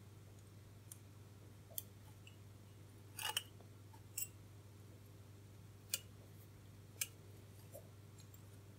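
Small clicks and light scrapes of resistor wire leads being pushed into a printed circuit board's holes as the board is handled, about six separate ticks spread out, the loudest a short scraping cluster a little over three seconds in. A steady low hum runs underneath.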